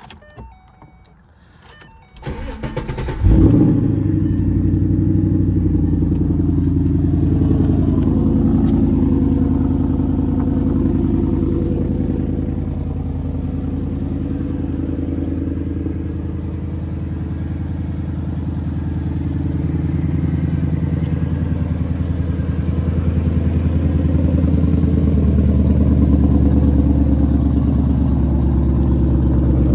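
2014 Ford Mustang GT's 5.0-litre V8 being cold-started. The starter cranks briefly about two seconds in, and the engine catches with a loud flare about three seconds in. It then settles into a steady idle.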